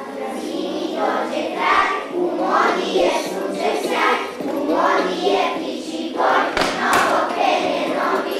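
Recorded children's song playing: a group of young voices singing over a musical accompaniment, with a sharp knock or two about seven seconds in.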